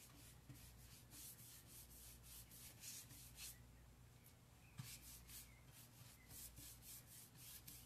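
Faint, quick, repeated brushing strokes of a wax brush working dark furniture wax into the crevices of a painted wooden cabinet door, pausing briefly about halfway through.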